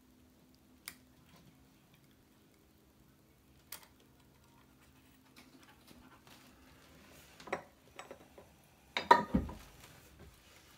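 Small hard clicks and knocks of tools and parts being handled on a workbench during soldering: a few isolated ticks, some rustling about seven seconds in, then a louder clatter with a dull thud near the end, over a faint steady hum.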